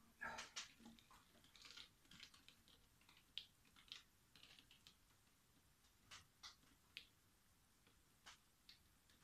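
Faint, scattered clicks and light taps from a wet acrylic-pour canvas being handled and tilted on its wooden supports, a quick cluster about a second in and a few single taps later.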